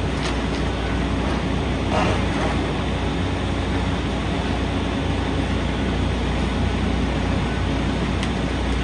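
Heavy diesel earthmoving machinery running steadily under load, a constant low engine rumble with a brief extra clatter about two seconds in.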